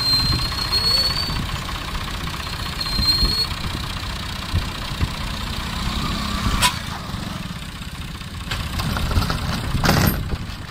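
Farm tractor diesel engines working hard under load as two tractors push against each other, a dense low rumble that swells and falls. A sharp clank about six and a half seconds in, and the engines rise in loudness near the end.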